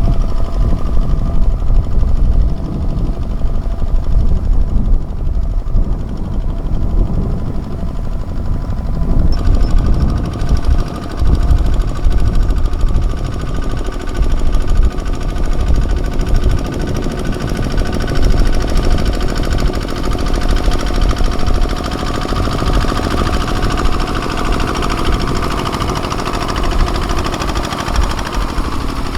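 Kubota ZT155 tractor's single-cylinder diesel engine chugging steadily under load while ploughing, a rapid, even knocking beat. About nine seconds in the sound turns brighter and fuller, as if the tractor comes nearer.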